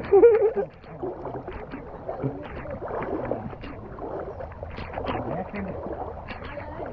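Water sloshing and splashing as people wade through a flooded paddy field, with a loud splash just after the start and voices talking throughout.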